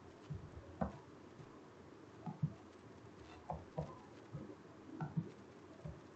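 Computer mouse buttons clicking about ten times at an irregular pace, some clicks in quick pairs, as values are clicked into an on-screen keypad.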